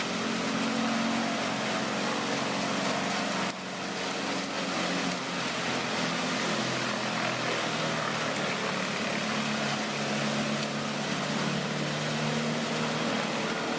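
Heavy wood chipper's engine running steadily, with a constant rushing noise over a low engine hum. The sound dips briefly about three and a half seconds in, then carries on.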